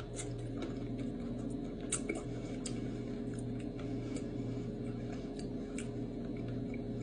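A person chewing a pressure-cooked chicken bone soft enough to eat, giving small irregular crunching clicks, about a dozen over several seconds. A steady low hum runs underneath.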